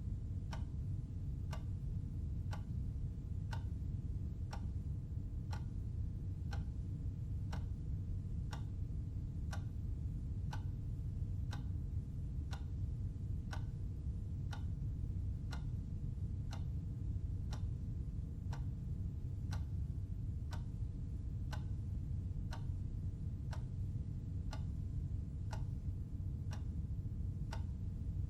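Clock ticking steadily, about two ticks a second, over a steady low hum.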